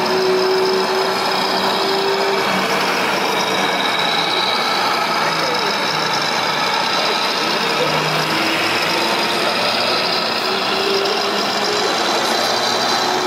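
RC model Mercedes-Benz Actros truck with tanker trailer driving slowly, an engine-like running sound holding steady with slight shifts in pitch, under the constant murmur of a crowd in a busy hall.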